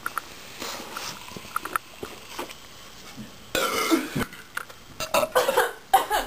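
A girl belching after chugging a can of Coke, the burp brought up by the fizz. After a few seconds of small clicks, a long loud burp comes a little past halfway, with more short bursts near the end.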